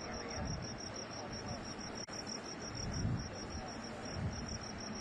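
Insects chirping steadily in a fast, even pulse, about nine chirps a second, with a few brief breaks. Underneath is a low rumble that swells and fades.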